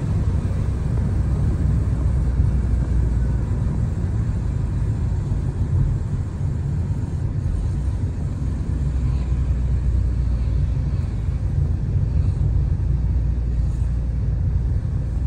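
Steady low rumble of a car being driven, with engine and road noise.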